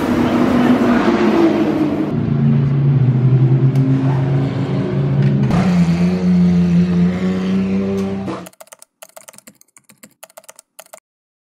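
Porsche 911 GT3 R's flat-six race engine running at low revs, its pitch stepping down once and then up again. About eight seconds in it cuts off abruptly, followed by a run of short, irregular clicks.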